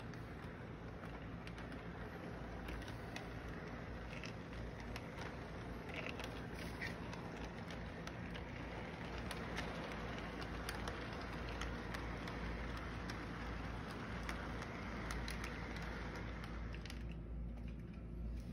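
Model train running around the track: a steady rumble of the locomotive's motor and the rolling cars, with scattered light clicks.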